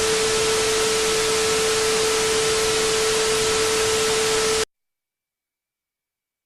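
Loud static hiss with a steady mid-pitched tone through it, cutting off suddenly after about four and a half seconds into dead silence.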